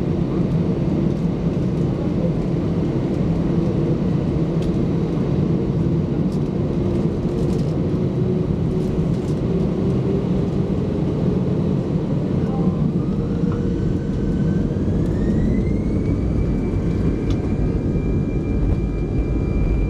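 Cabin noise of an Airbus A319 taxiing, heard inside the cabin over the wing: a steady low engine and rolling rumble. About two-thirds of the way through, the turbofan's whine rises in pitch as thrust is added, then holds steady.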